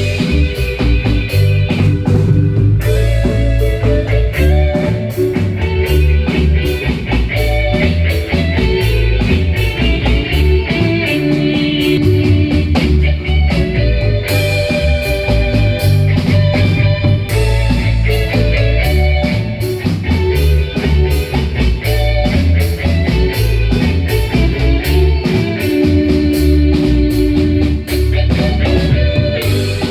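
Live Guatemalan marimba band music: fast repeated marimba notes over a strong, pulsing bass line and a steady dance beat.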